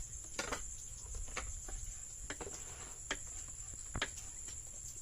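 Insects trilling steadily in one continuous high tone, with scattered short clicks and knocks about once a second.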